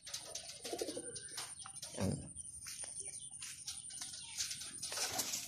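Racing pigeons cooing in their loft, low and drawn out, about a second in and again about two seconds in, amid scattered light clicks and rustles.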